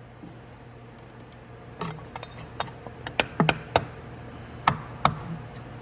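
The wooden handle of a hammer tapping a motorcycle's front sprocket cover back into place: several sharp, irregularly spaced knocks that begin about two seconds in.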